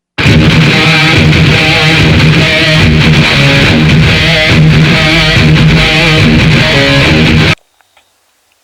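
Loud strummed guitar music that cuts off suddenly near the end, leaving only a few faint clicks.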